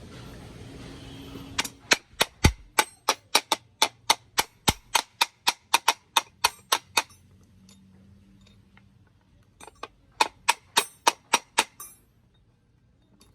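Repeated sharp metal-on-metal hammer strikes, an even run of about three a second, then a pause and a second, shorter run.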